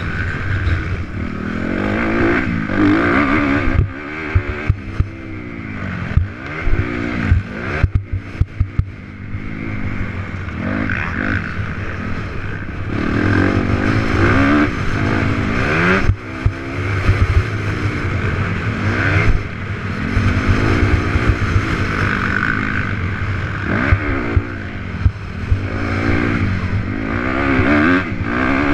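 Honda CRF250R's four-stroke single-cylinder engine revving up and down again and again with the throttle and gear changes while riding, with scattered sharp knocks and clatters from the bike over the bumps.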